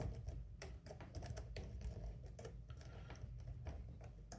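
Light, irregular metallic clicks and ticks of a key being worked in an Anchor Lås 820 disc-detainer padlock, turning its rotating discs.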